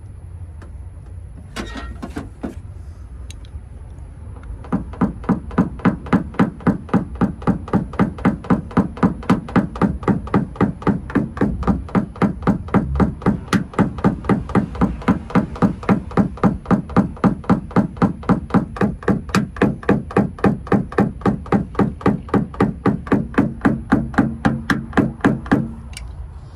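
A small plastic-headed hammer tapping a knockdown punch against a car's quarter panel, knocking down high spots in paintless dent repair. After a few scattered taps, it settles about five seconds in into a steady, even run of about four taps a second that stops near the end.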